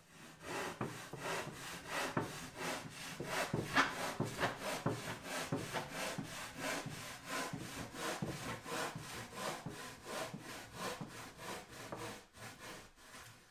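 Handsaw cutting through a rigid insulation board in rapid, even back-and-forth strokes; the board cuts really easily. The sawing stops suddenly near the end.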